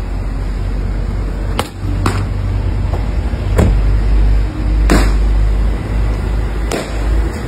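Five sharp knocks over a steady low rumble as a man gets into the driver's seat of a Mercedes-Benz SUV; one of the two loudest knocks, in the middle, is the driver's door being shut.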